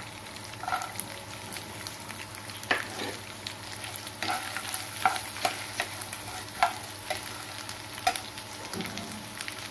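Chopped coconut and whole spices frying in hot oil in a non-stick kadai, a steady sizzle, while a steel spatula stirs them, scraping and clicking against the pan about eight times at irregular intervals.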